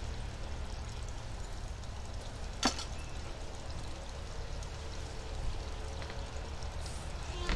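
Steady low background rumble, with one sharp click about two and a half seconds in.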